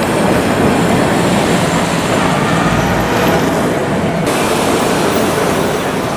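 Vintage Milan tram rolling along street rails, a steady loud rumble mixed with city traffic noise; the sound changes abruptly about four seconds in.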